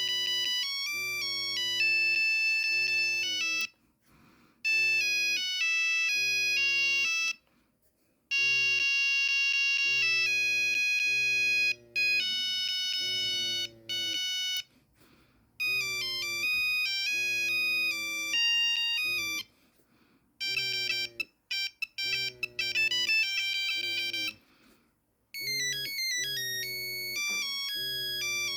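Nokia 3310 playing monophonic ringtones through its small speaker: short beeping tunes one after another, with brief gaps between them. A low pulsing buzz sounds under the tones.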